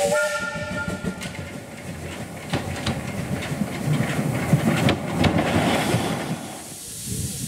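W.G. Bagnall saddle-tank steam locomotive Florence No 2: its steam whistle stops about a second in, then the engine runs close past with steam exhaust and uneven knocks of wheels over the rails, loudest as it passes and dropping away near the end.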